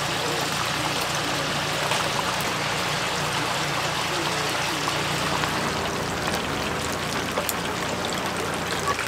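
Chicken deep-frying in a vat of hot oil: a steady sizzle with fine crackles.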